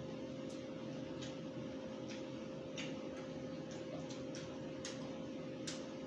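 Faint eating sounds of a man chewing chicken with his mouth open: about nine short, irregular clicks and smacks over a steady low hum.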